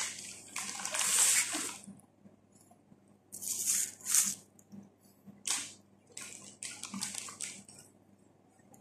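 Plastic bag rustling and crinkling as it is handled, in irregular bursts with short pauses between.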